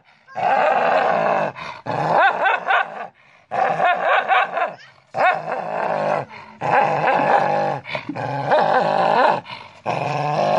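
A dog growling and snarling at its own reflection in a mirror, in about seven rough, wavering bouts of a second or so each, with short breaks between.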